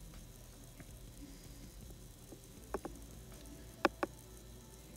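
Quiet background with a low steady hum, broken by three short sharp clicks: one a little under three seconds in and two close together about four seconds in.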